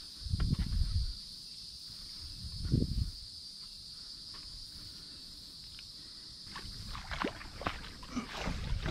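Water sloshing with low hollow knocks against a kayak hull, under a steady high buzz of insects. A run of small splashes and clicks comes in the last couple of seconds.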